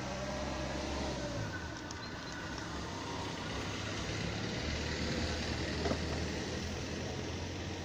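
White compact van driving past close by on the road, engine hum and tyre noise swelling as it passes, with a brief knock about six seconds in.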